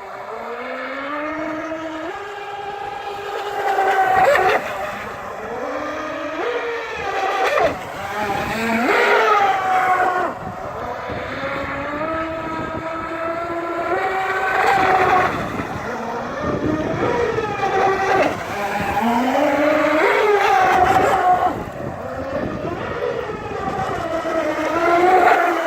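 Robbe Sea Jet Evolution radio-controlled model jet ski's motor whining, its pitch rising and falling again and again as the throttle is worked.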